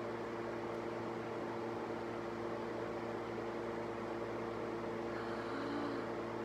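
Small portable electric fan running at a steady speed: an even rush of air with a steady hum of several tones over it, kind of loud.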